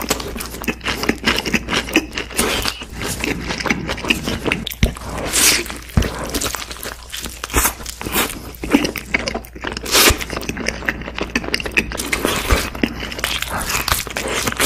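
A person eating a fried chicken burger and pieces of fried chicken: chewing and biting with wet mouth sounds and many short crackling clicks throughout.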